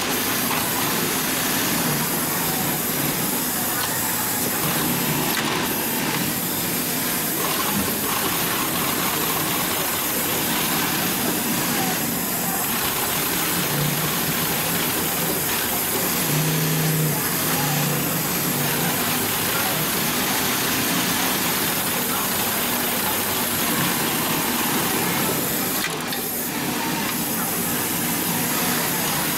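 HIGHTEX 7204-370DP heavy-duty post-bed triple-feed double-needle lockstitch sewing machine stitching thick leather, running in short spurts with stops between, over a steady hiss.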